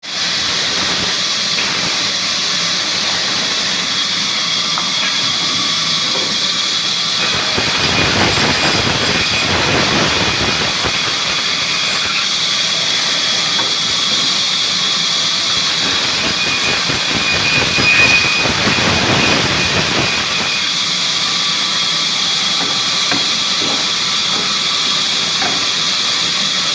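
Sawmill machinery running with a steady loud hiss, growing rougher and fuller from about 7 to 20 seconds in, as if under load.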